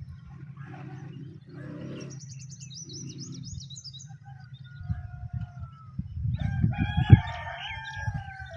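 Birds calling: a high rapid trill about two seconds in, then one long wavering call from about six seconds in, over a steady low rumble with a few thumps.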